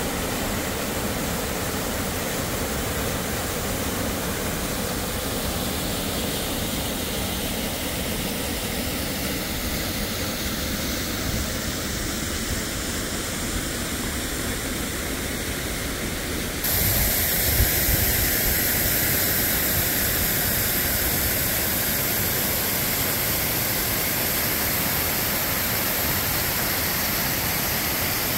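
Water rushing steadily down a small river cascade that is partly buried under snow and ice. About two-thirds of the way through the sound jumps abruptly louder and hissier, as the listening point moves to just above the falling water. A brief low bump follows soon after.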